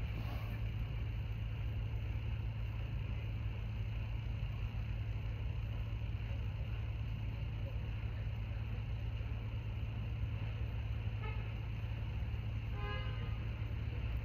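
Steady low hum under faint even background noise. A brief faint pitched tone sounds near the end.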